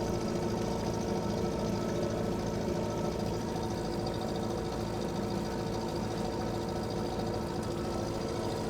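Fishing boat's engine running steadily at a low, even speed with a fast, regular chugging beat.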